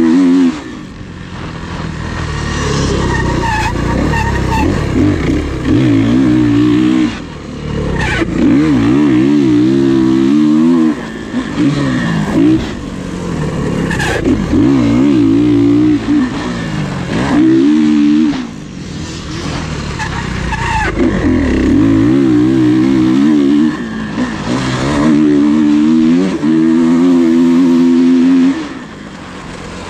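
Off-road racing dirt bike engines at full throttle, the pitch climbing and dropping in repeated bursts every few seconds as the riders accelerate, shift and back off.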